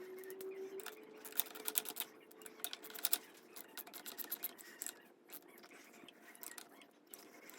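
Irregular light clicks, taps and scrapes of hand work on small motorcycle parts, over a faint steady hum.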